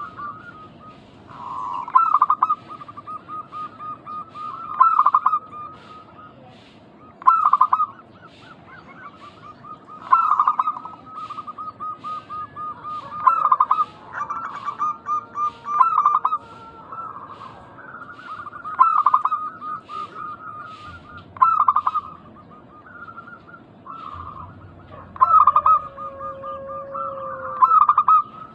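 Zebra doves (perkutut) cooing: repeated phrases of quick staccato coos, one about every two to three seconds, with more than one bird calling at times.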